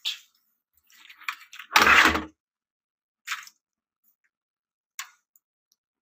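Handling noise from a CRT monitor's casing and sheet-metal shield being moved on the bench: light rustling, then one loud clunk with a scrape about two seconds in, followed by two short clicks.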